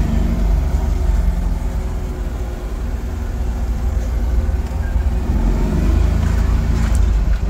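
Kia Towner mini truck's engine running on a swapped-in 250cc motorcycle carburetor, heard from inside the cab as the truck pulls away and drives off. A deep, steady rumble with a faint engine note above it and a few light clicks near the end.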